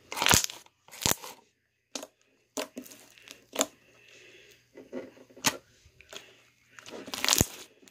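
White slime being stretched, folded and pressed by hand, giving about eight sharp, irregular pops and clicks from trapped air, the loudest near the start and just before the end.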